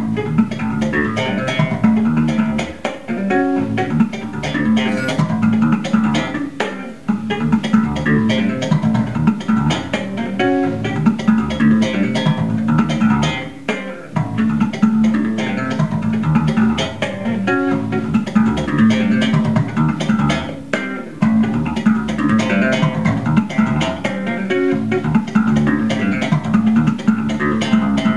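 Music led by an electric bass guitar playing a fast, busy line of plucked notes.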